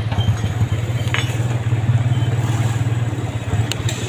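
Motorcycle engine of a tricycle (motorcycle with sidecar) running steadily under way, heard from inside the sidecar, with a couple of light clicks.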